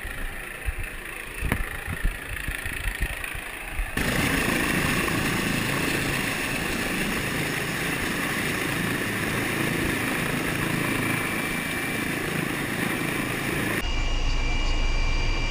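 Helicopter noise picked up by a body-worn camera, in three cut-together shots. The first holds scattered knocks and rustles over the engine noise. Then comes a loud, steady rush, and inside the cabin in flight a steady turbine whine with a low rotor rumble.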